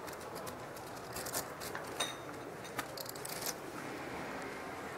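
Poker chips clicking together in a few light, scattered clacks, some with a brief ring, over the steady hum of the card room.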